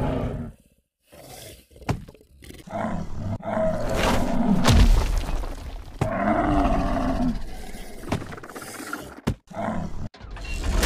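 Loud animal roars, dubbed in as a sound effect, coming in several separate calls with short gaps between them; the longest ends in a deep low rumble about halfway through.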